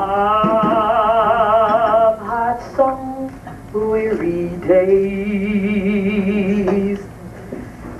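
A woman singing solo into a handheld microphone, holding long notes with a wide vibrato. One long note opens the passage and another comes in the second half, with shorter notes between them.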